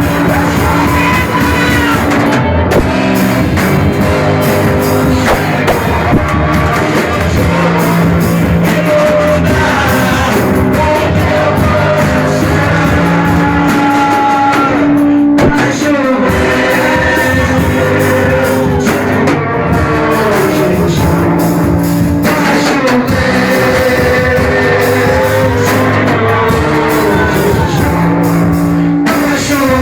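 Rock-style band music with a singer and guitar, playing continuously.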